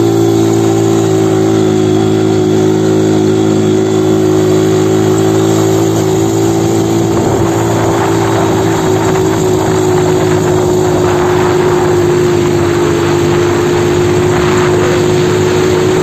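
A 200cc quad bike engine runs at a steady speed while it is ridden over sand. A rushing noise builds up from about halfway through.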